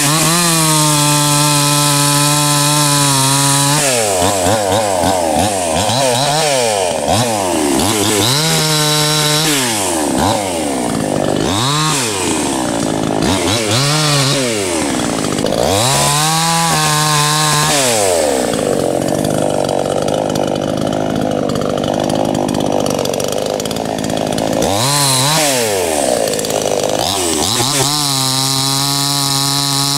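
Anbull 52cc two-stroke chainsaw cutting the limbs of a fallen tree. It idles steadily, then is revved up and down again and again as it bites into branches, runs at high revs for several seconds in the middle while cutting, and drops back to a steady idle near the end.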